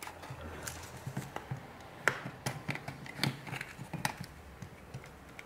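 Irregular small plastic clicks and snaps as the plastic housing of an Aspera F28 flip phone's display half is pried apart with a thin tool, the sharpest a little after two, three and four seconds in.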